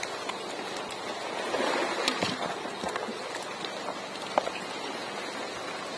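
Steady water noise, sloshing and splashing, with a few scattered clicks and knocks; one sharper knock comes about four and a half seconds in.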